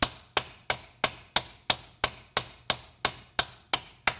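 A hammer strikes a steel drift tool in a steady run of sharp taps, about three a second. Each tap drives the reverse detent liner bushing deeper into the ZF S5D320Z gearbox case.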